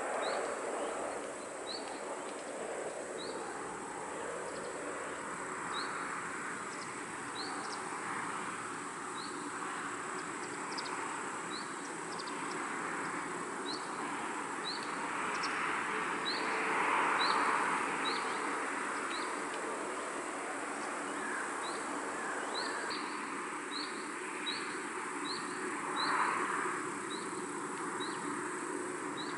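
Countryside outdoor ambience: a short rising chirp repeats irregularly, about once or twice a second, over a thin steady high insect-like drone. A soft rustling hiss of breeze swells and fades several times, loudest about two-thirds of the way through and again near the end.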